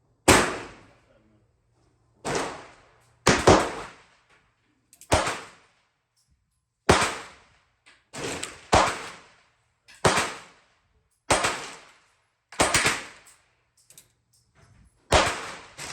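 A string of sharp .22 rimfire handgun shots, about a dozen, roughly one every one to two seconds, some in quick pairs, each with a short echoing tail.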